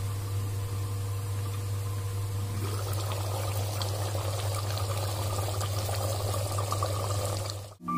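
Mutton curry boiling hard in an open pressure cooker over a high flame: steady bubbling and spattering that grows busier about three seconds in, over a steady low hum. It stops suddenly near the end.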